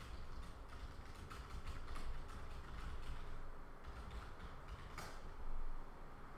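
Irregular clicks and creaks from a computer mouse and desk being handled close to the microphone, several a second, with a louder click about five seconds in.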